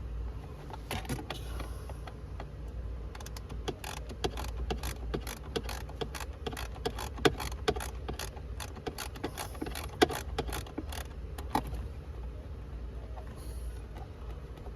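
A screwdriver working out one of the small screws that hold a car's blower motor under the dashboard: a long run of quick, irregular metal clicks, thickest in the middle stretch, over a low steady hum.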